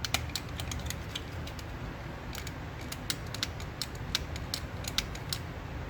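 Power window switch clicked again and again, a string of irregular sharp clicks over a low steady hum, with no window motor running: the rear window will not go up.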